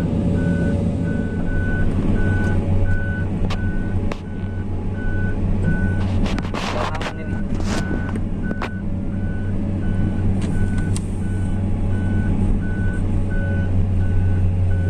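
Heavy diesel machine's engine running steadily under a warning beeper that sounds about twice a second, with a few short rushing noises and knocks about six to eight seconds in.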